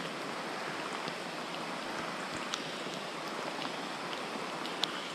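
Heavy rain falling on a stream's surface: a steady hiss with scattered sharp ticks.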